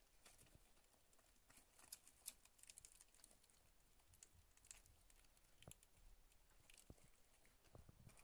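Faint, irregular small clicks and rustles of hamsters nibbling fresh greens and shifting in wood-shaving and newspaper bedding.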